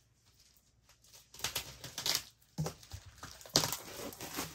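Hardback book volumes being handled as one is pulled from the set: several short scratchy rustles and a soft knock, the loudest rustle about three and a half seconds in.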